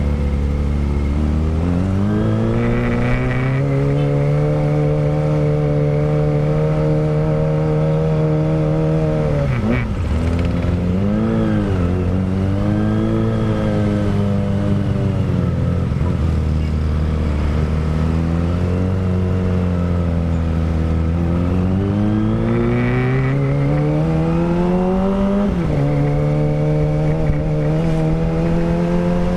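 Kawasaki ZX-25R's 250 cc inline-four running through a Villan Pro 1 full-system racing exhaust while riding. The engine note rises and falls with the throttle, holding steady between climbs, and drops sharply about ten seconds in and again near the end before climbing once more.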